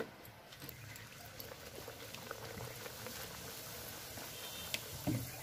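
Hot oil in a karahi sizzling and crackling steadily as luchis deep-fry, with scattered small pops. A short low thump near the end.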